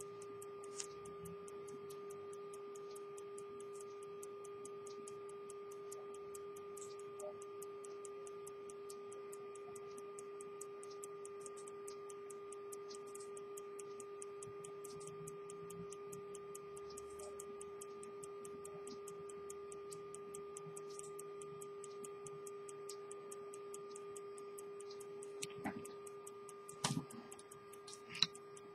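An antique English verge pocket watch movement ticking fast and evenly, with a steady hum underneath. A few louder handling clicks come near the end.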